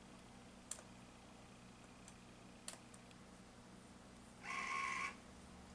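A low steady hum with a few faint clicks, then a brief motor whir a little past halfway through: the Metrohm 716 DMS Titrino's burette drive dosing a small increment of titrant near the end point.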